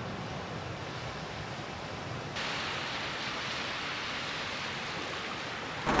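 Steady rushing outdoor noise with no clear tones, turning louder and brighter about two and a half seconds in.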